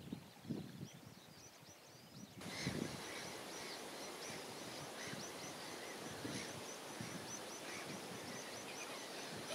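Many birds calling in short, high, repeated notes over a steady hiss of lapping water. There are a few low thumps in the first second, and about two and a half seconds in the sound cuts to a louder, busier chorus of calls over stronger water noise.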